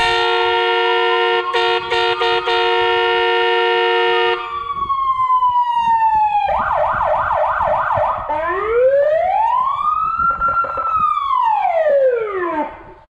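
Star 200 fire truck's electronic siren run through its tones. First a steady multi-note horn blast, broken briefly twice, sounds over a slow rising and falling wail for about four seconds. Then a fast yelp, then one long wail that climbs and falls away and cuts off near the end.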